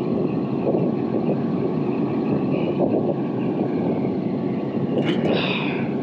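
Steady rumble of running rooftop air-conditioning machinery, with a faint steady hum over it. A brief higher hiss comes about five seconds in.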